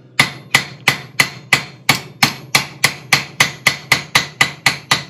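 Blacksmith's hammer striking hot steel bar on a Mousehole anvil in a steady run of light, rapid blows, about three a second, each with a short ring. He is rounding a square taper: knocking the corners off the octagon to bring it back to round.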